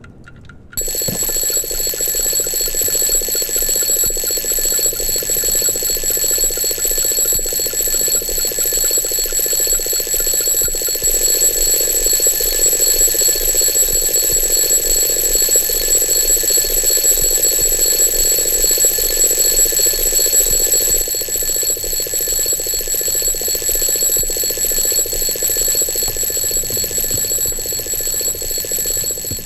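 Alarm clock going off: a loud, steady, high-pitched ringing that starts suddenly about a second in and carries on unbroken, easing off slightly near the end.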